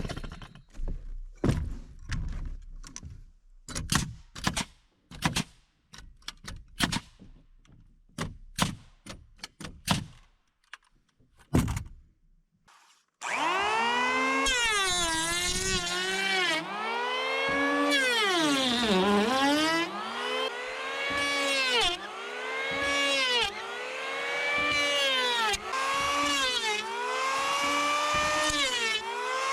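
About a dozen sharp, irregular knocks, hammer blows setting nails into deck planks. About halfway through, an electric hand planer starts and runs over the boards, its motor pitch dipping and recovering again and again as the blade bites on each pass.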